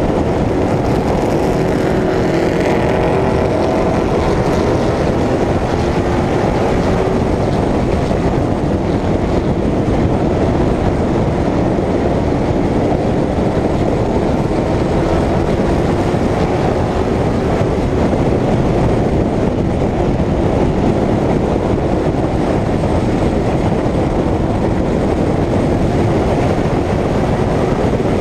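Short-track stock car engine running hard at racing speed, heard from an onboard camera with heavy wind rush over the microphone. It makes a steady, loud roar, and the engine pitch wavers slightly in the first few seconds.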